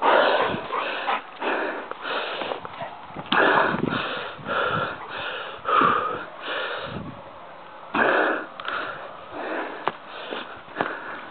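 Heavy, rhythmic breathing close to the microphone, a wheezy puff about twice a second.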